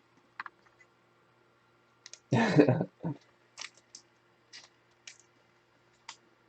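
Trading cards and packaging being handled: a string of light, sharp clicks and rustles, with one louder scraping, crackling noise lasting about half a second just over two seconds in.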